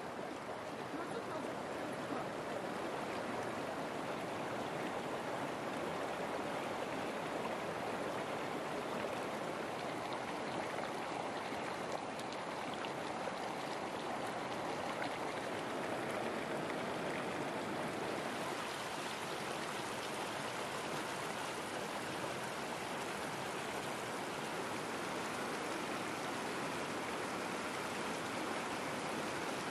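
Steady rush of running water, like a stream, without a break.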